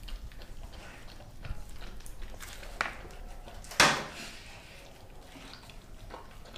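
Doberman eating raw meat and chicken bone from a stainless steel bowl on a tile floor: scattered wet chewing and crunching clicks, with one loud ringing clank of the metal bowl a little before the middle.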